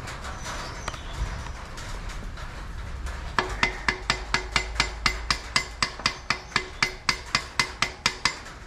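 A hammer tapping the axle bolt of a Royal Enfield Bullet 350 wheel to drive it out: a steady run of sharp metallic strikes, about three a second, starting about three seconds in, each with a brief ring.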